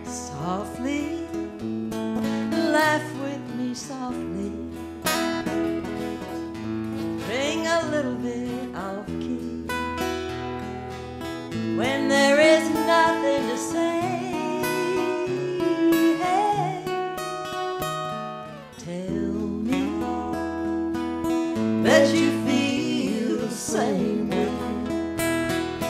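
Two acoustic guitars strummed and picked together, with a woman singing a country-style melody over them. The playing eases briefly about two thirds of the way through, then picks up again.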